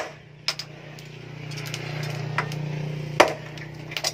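Sledgehammer and hand-hammer blows on red-hot axe steel on an anvil: sharp metal strikes, one at the start, one about half a second in, a loud one about three seconds in and one near the end. A steady low hum swells between the strikes and stops at the loud blow.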